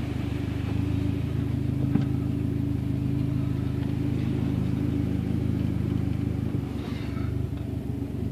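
Dodge Neon SRT-4's engine running steadily, heard from inside the cabin, its note stepping up slightly about a second in.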